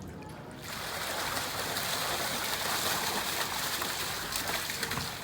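Water gushing and splashing, starting suddenly just under a second in and going on steadily, as fish are tipped out of a container into the water.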